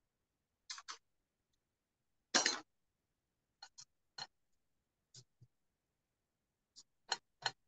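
Spatula scraping and tapping against a dry stainless steel pan while grated ginger and green chilies are sautéed without oil: a handful of short scrapes and clicks, the loudest about two and a half seconds in and two more near the end.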